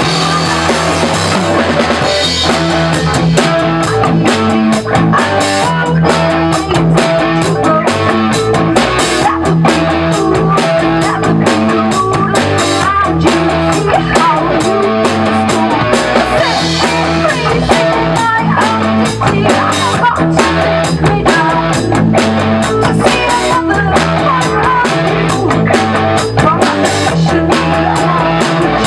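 Live rock band rehearsing: electric guitar, bass guitar and drum kit playing together, with a woman singing into a microphone.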